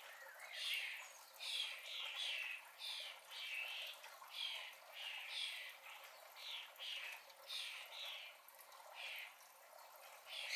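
Common starling fledglings giving harsh, rasping begging calls, about two a second, asking to be fed.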